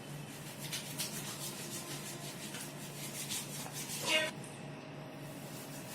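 Hands rubbing over skin or cloth in a run of quick strokes, with one louder, brief rub about four seconds in, over a steady low hum.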